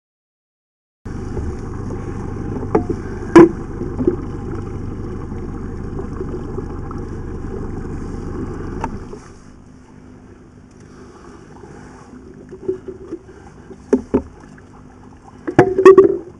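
Sounds aboard a small inflatable boat: a steady low rumbling noise starts about a second in and drops sharply about nine seconds in, leaving a quieter hiss. Sharp knocks and clicks come about three seconds in and in a cluster near the end, as a hand line and its plastic spool are handled.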